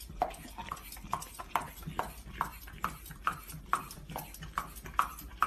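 A dog chewing and smacking its mouth, a regular wet smack a little over twice a second.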